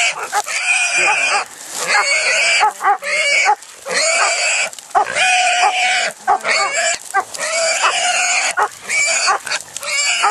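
A caught wild hog squealing loudly, in repeated squeals with short breaks.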